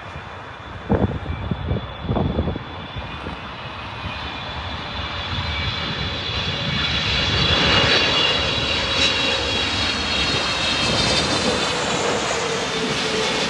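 Boeing 777-300ER's GE90-115B jet engines running with a steady high whine over a roar that grows louder over the first half and then holds. A few thumps come about one and two seconds in.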